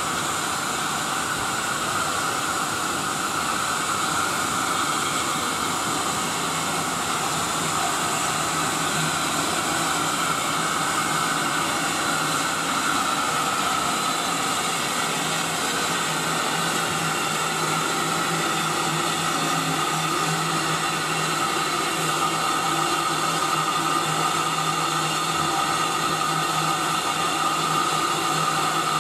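Steady, continuous hiss of steam escaping from a standing BR Standard 9F steam locomotive, No. 92212, blowing off steam.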